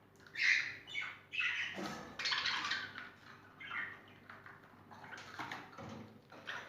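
Small cage birds chirping and squawking in a run of short, irregular calls, the loudest about half a second in.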